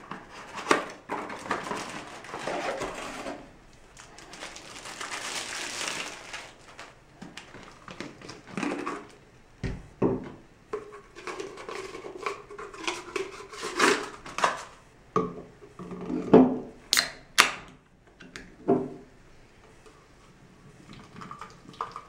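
Unboxing handling noise: a cardboard box being slid open and rustled, and a plastic filter water bottle handled, unscrewed and knocked on a wooden table. Near the end a soda can's tab cracks open with two sharp clicks, then Coca-Cola is poured quietly into the bottle.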